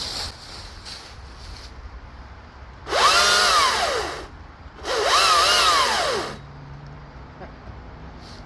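Greenworks 82V cordless electric chainsaw's motor whining up to speed and back down twice, each run about a second long, with the chain mounted backwards.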